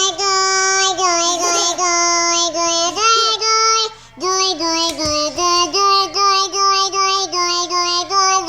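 A child's voice held on one high, steady pitch while repeating the syllable 'girl' over and over, each repeat making a quick dip in the tone, through hands cupped to leave a tiny opening; it breaks off briefly about four seconds in.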